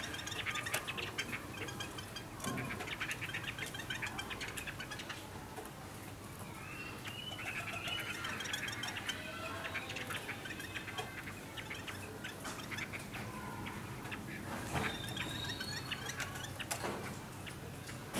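A bird calling with short chirps and curving notes, preceded by a run of fast clicking sounds in the first few seconds.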